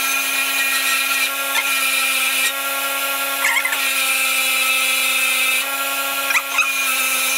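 Bench grinder's wire wheel running steadily, with the scratching hiss of a steel mower deck spindle part held against it to clean it. The scratching varies in strength as the part is moved on the wheel.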